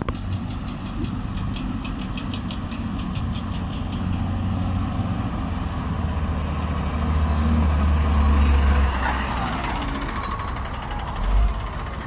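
A Caterpillar motor grader's diesel engine running close by. Its low drone swells to its loudest about two-thirds of the way through as the machine comes near, then eases. A fast ticking runs over the first few seconds, and there is a brief low thump near the end.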